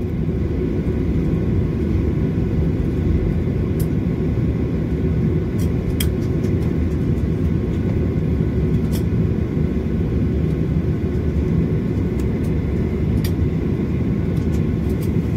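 Steady low rumble inside the cabin of a Boeing 737-800 taxiing: its CFM56 engines at idle and the wheels rolling over the apron, with a few short clicks now and then.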